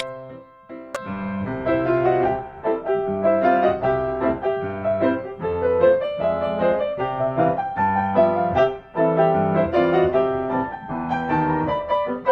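Background piano music, a steady run of melodic notes with chords.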